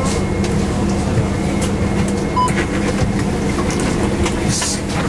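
Inside a moving city bus: a steady low drone of engine and road noise, with small rattles and clicks throughout.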